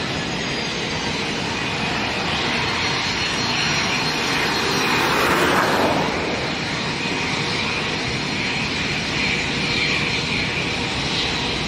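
Airbus A319's twin jet engines at takeoff thrust as the airliner lifts off and climbs away: a steady jet rush with a faint high whine, swelling a little about five to six seconds in.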